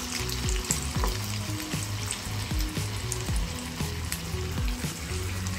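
Batter-coated cauliflower pieces deep-frying in hot oil: a steady sizzle with small crackling pops. Background music with a regular bass beat runs underneath.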